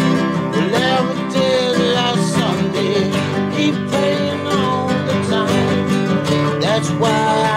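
Nylon-string classical guitar strummed in a steady rhythm, with a man singing along.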